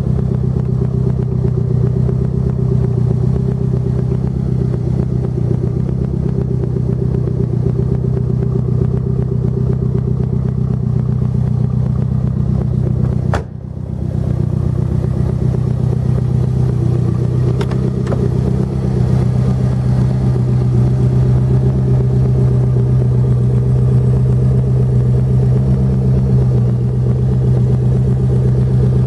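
Lancia Delta HF Integrale 16V's turbocharged DOHC 16-valve four-cylinder engine idling steadily, with a brief dip in level about halfway through.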